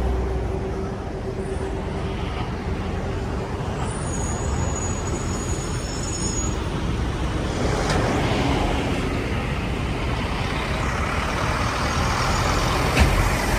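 Kenworth semi-trailer truck's diesel engine idling with a steady rumble. A brief rush of noise comes about eight seconds in, and a sharp click near the end.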